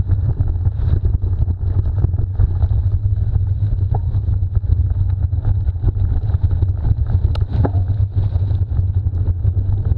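Wind buffeting the microphone in a steady low rumble, with a few faint clicks.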